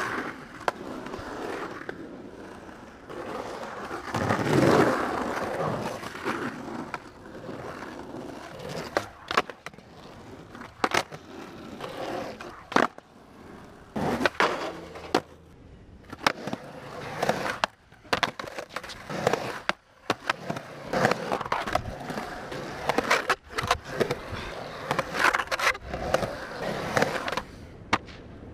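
Skateboard wheels rolling over concrete and asphalt, broken by many sharp clacks of the board striking the ground.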